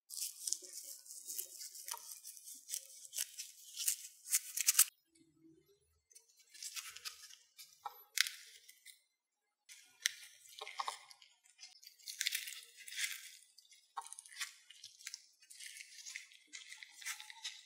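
Crisp crinkling and rustling in clusters of short crackles, with brief pauses about five and about nine seconds in.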